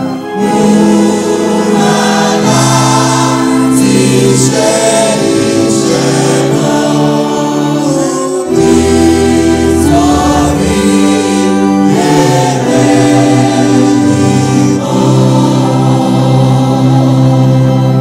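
A church choir singing a Yoruba hymn in sustained held notes, the voices amplified through handheld microphones.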